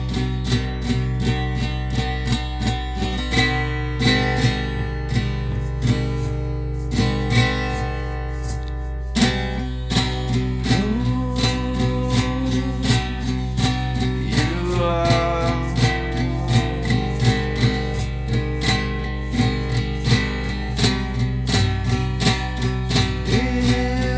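Music: an instrumental passage of a song, with strummed guitar over a steady beat.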